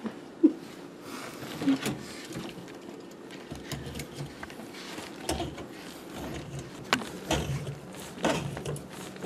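Handling noise from work inside a sink cabinet: scattered knocks, clicks and scrapes, with low rumbling as the camera is moved about from about a third of the way in.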